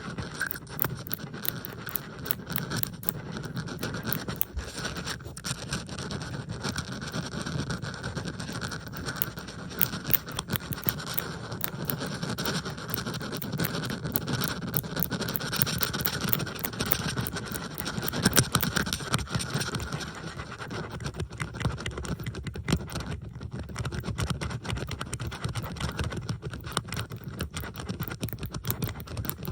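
Bobby pins handled close to the microphone: a dense, continuous run of small clicks and scratching, with several recordings layered over one another.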